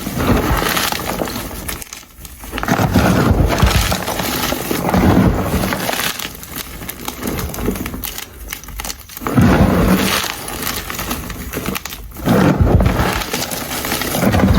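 Blocks of gym chalk being crushed: dense, crisp crackling and crunching in several long bouts with short pauses between them.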